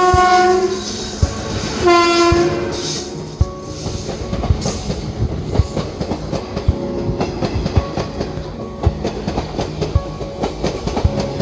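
Locomotive horn sounded in two blasts near the start, then an express train running through the station at speed, its wheels clattering rapidly over the rail joints.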